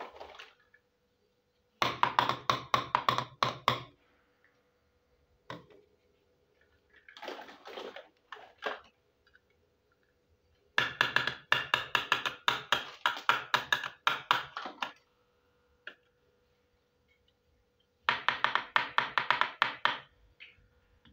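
Miniature toy kitchen pieces of plastic and thin metal being handled and rattled, in three bursts of rapid clattering clicks with quieter handling in between. A faint steady tone runs underneath.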